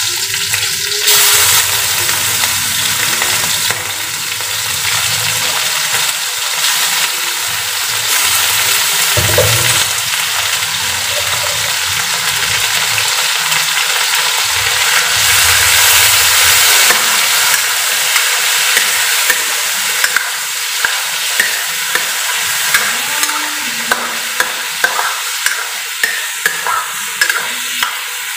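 Raw chicken pieces sizzling in hot oil in a wok with garlic, onion and lemongrass, a steady frying hiss. In the last several seconds a spatula clicks and scrapes against the pan as the chicken is stirred.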